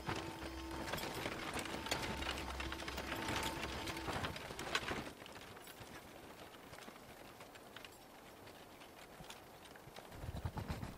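Horse hooves clip-clopping with a wagon rattling along, over a steady drone; the sound cuts off abruptly about five seconds in. Faint hoofbeats follow, and heavier hoofbeats come back near the end.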